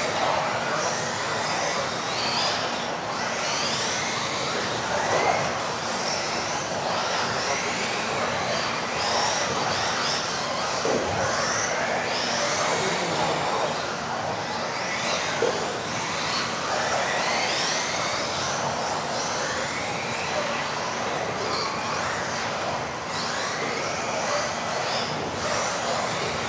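Several radio-controlled off-road racing cars with modified-class brushless electric motors racing together. Their motors whine in pitch glides that rise and fall over and over as the throttle is opened and closed, over a steady background of noise.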